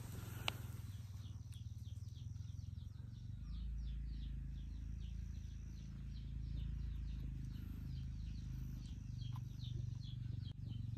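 A bird calling in a rapid series of short, falling high chirps, about four a second, over a steady low rumble. There is a single sharp click about half a second in.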